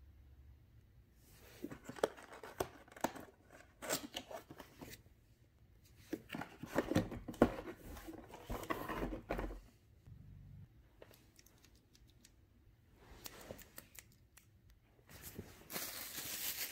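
A cardboard 3D puzzle box being opened and its stacks of puzzle sheets handled on a tile floor: scraping, sliding and tapping of cardboard in bursts. Near the end a plastic bag crinkles.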